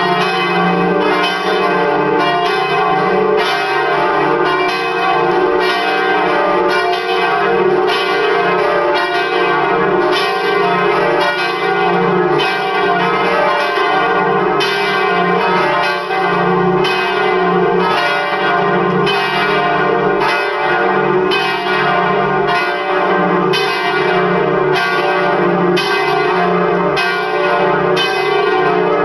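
Full peal of four swinging church bells tuned D, D-sharp, F and G, ringing together in an unbroken run of overlapping strokes over a steady ringing hum. The swing of the two largest bells has been balanced by a bell technician.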